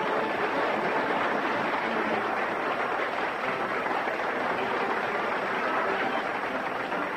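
Crowd applauding, a steady dense clatter of many hands clapping.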